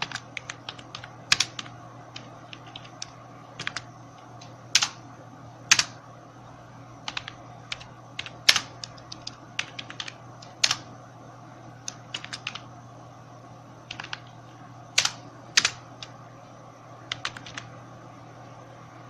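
Computer keyboard typing in uneven runs of keystrokes, with a few louder single key presses standing out. A steady low hum lies underneath.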